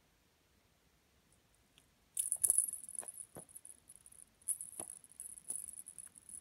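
Small jingle bell on a string toy jingling in irregular spurts, with light taps, as a kitten bats and bites at it. It starts about two seconds in.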